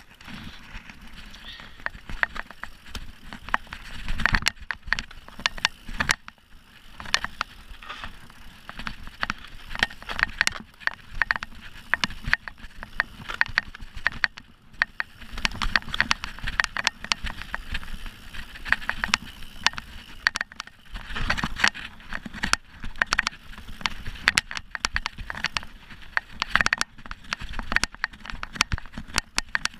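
Mountain bike ridden over a rough forest dirt trail: tyres rolling over dirt and leaf litter, with frequent irregular rattles and knocks from the bike over bumps.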